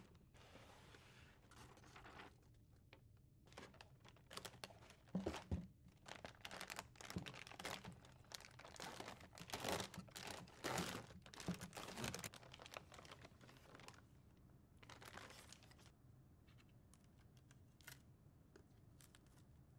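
Metallised foil packaging bag crinkling and tearing as it is handled and pulled open, in repeated bursts of rustling that are loudest in the middle. Near the end only faint rustles and small clicks remain.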